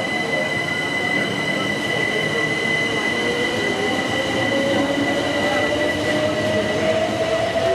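Electric passenger train heard from on board: a constant high whine and the running noise of wheels on track, with a motor tone that starts rising slowly in pitch about halfway through as the train picks up speed.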